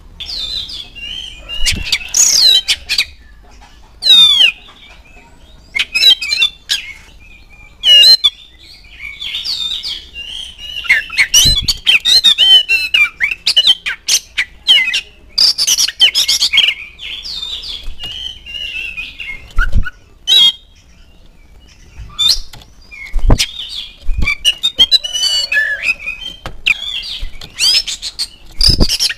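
Oriental magpie-robin singing a varied song of whistles, trills and rising and falling notes in phrases with short pauses, with several thumps as it hops about its cage.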